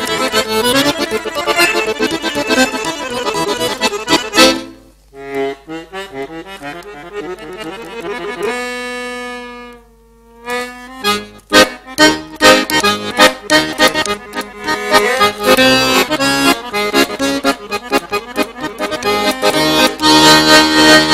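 Solo piano accordion: fast, loud runs that end in a sharp accent about four seconds in, then a softer passage and a held chord that breaks off for a brief pause about ten seconds in. The fast, loud playing then resumes with crisp, detached attacks.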